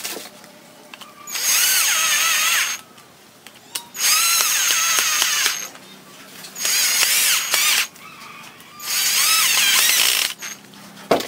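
Cordless drill-driver with a Phillips bit driving four screws into a plastic cover plate, one after another: four runs of motor whine of about a second and a half each, with short pauses between. A sharp knock comes just before the end.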